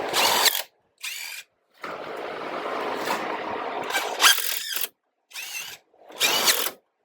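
Power drill running in several short bursts separated by abrupt stops, its motor whine rising and falling in pitch as the speed changes.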